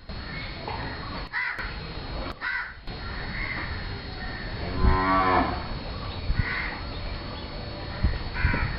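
Thari/Mewati zebu bull calling during courtship: a series of short, harsh, crow-like jeering calls, repeated several times. The loudest is a longer call with a clear pitch about five seconds in.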